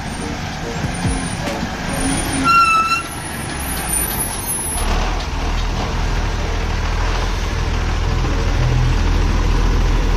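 Tipper (dump truck) close by: its brakes give a short high squeal about two and a half seconds in, then from about five seconds in its diesel engine runs with a steady low rumble as it stands by.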